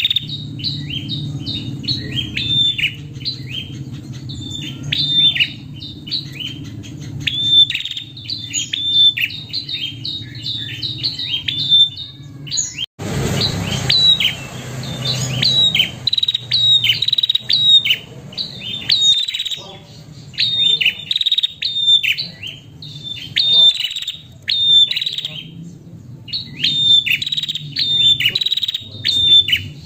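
Female prenjak calling: a fast, unbroken run of short high chirps, several a second, many falling in pitch, the call a female uses to draw a male. A brief burst of noise cuts in about halfway through.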